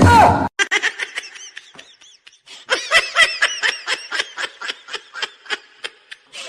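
A person laughing in a long run of short, high-pitched bursts, about four or five a second, stronger in the second half. It opens with a brief loud cry that falls in pitch.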